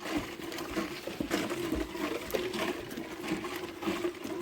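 A flying insect buzzing close by, a steady, slightly wavering hum, with scattered rustles and clicks.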